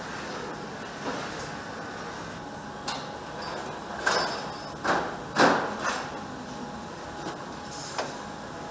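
Steady factory-floor hum with a handful of sharp clacks and knocks as parts are handled at an assembly jig. The knocks cluster between about four and six seconds in, the loudest around the middle, and there is one more near the end.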